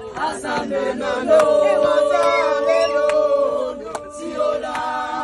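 A group of people singing together in harmony with voices holding chords, and a short break about four seconds in. Sharp handclaps come now and then.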